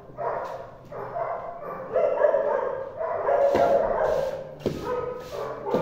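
Dogs whining and yipping in drawn-out calls. From about three seconds in, a long-handled scraper scrapes the concrete floor in short repeated strokes, with a couple of sharp knocks.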